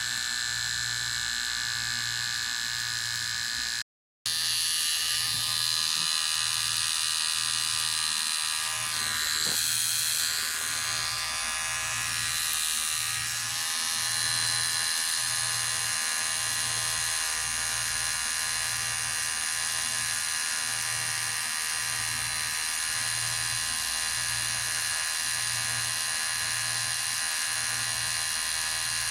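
Electric hair clipper running with a steady buzz. The sound cuts out for a moment about four seconds in, then carries on.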